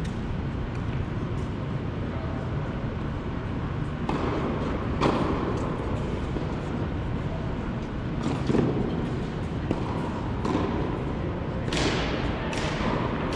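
Tennis ball hits and bounces on an indoor hard court, several sharp pops coming at irregular intervals, each echoing through the large hall over a steady low hum.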